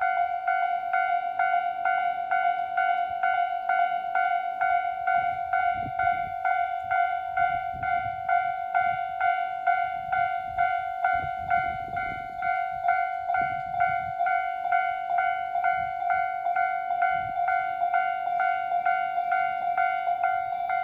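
Japanese level-crossing electronic warning bell ringing in a steady repeating clang, a little over two strikes a second. A train's low rumble passes under it in the middle.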